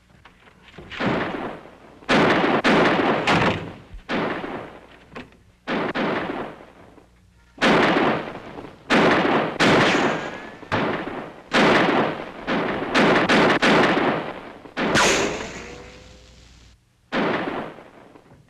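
A gunfight of revolver shots: about fifteen sharp reports at uneven intervals, each trailing off in a rolling echo.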